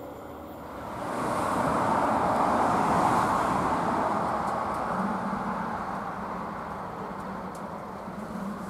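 A vehicle passing by: a rushing noise that swells about a second in and fades away over the next few seconds.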